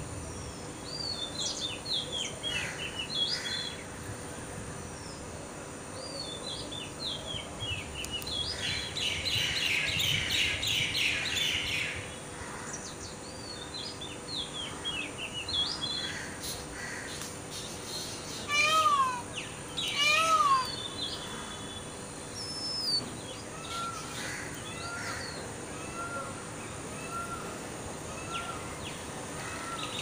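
Birds chirping and calling: scattered short high chirps and trills, two loud falling calls a little past the middle, and a run of short, evenly spaced repeated notes near the end.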